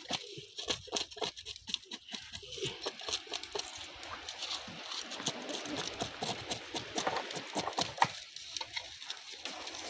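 Knife blade scraping the scales off a whole fish, a quick, uneven run of short crisp scrapes and clicks.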